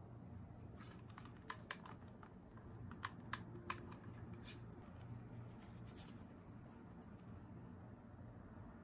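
A handful of small, sharp clicks and taps from hard cured resin pieces and a silicone mold being handled, then light rubbing as a cured resin butterfly is pressed out of the soft silicone mold.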